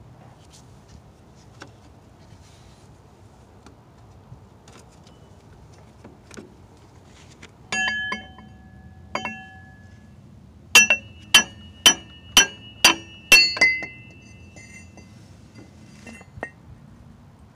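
A hammer strikes a metal drift held against a crankshaft vibration damper (harmonic balancer) whose rubber ring has failed, letting its outer ring separate from the hub. There are two ringing metal strikes, a pause, then a quick run of about six ringing blows roughly half a second apart.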